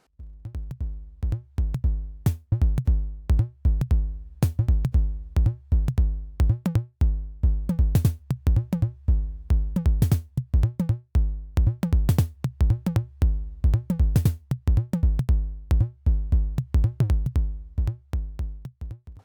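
Electronic background music with a steady drum-machine beat: heavy bass-drum pulses, sharp snare-like hits and a synth bass line. It starts and stops abruptly.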